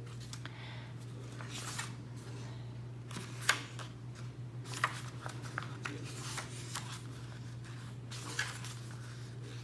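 Paper pages of planner insert booklets being turned and handled on a wooden table, rustling in short swishes with a few sharp taps, over a steady low hum.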